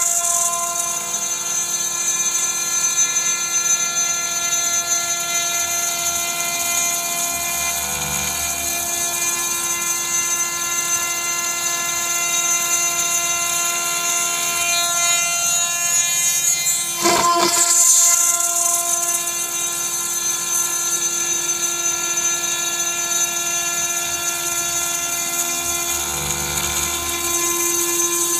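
CNC spindle turning a 3.175 mm single-flute end mill at 16,000 rpm while it mills a profile in aluminium sheet at a 100 mm/min feed: a steady high whine of several held tones over a hiss of cutting. There is a brief louder burst a little past halfway.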